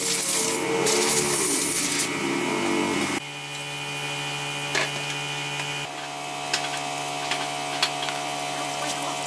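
A small electric motor running with a steady hum and a few light clicks. The sound changes abruptly about three seconds in.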